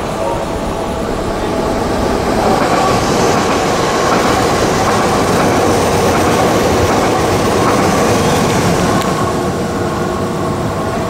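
Dutch Railways (NS) Sprinter electric passenger train passing at speed: wheel-on-rail running noise with a steady whine, swelling about two seconds in, staying loud through the middle as the cars go by, and easing near the end.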